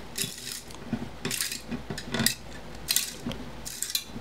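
Blasting media grit grinding between the vanes of a ganged radio tuning capacitor as its jammed shaft is forced round with pliers. It comes as a run of harsh scraping bursts, about one a second. The grit is lodged between the plates after media blasting, and the sound is "awful".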